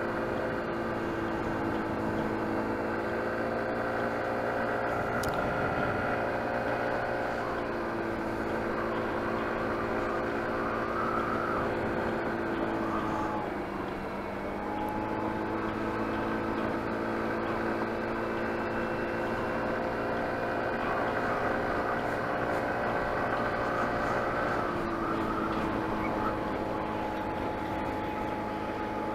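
Motor scooter's small engine running at steady cruising speed with the rush of riding past the microphone; it eases off briefly about halfway through, then picks back up.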